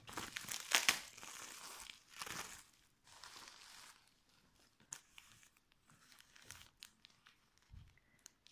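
Plastic bubble wrap crinkling as it is pulled off a wrapped item, loudest in the first three seconds, followed by fainter rustling and crackling of tissue paper being unfolded by hand. A soft low bump comes near the end.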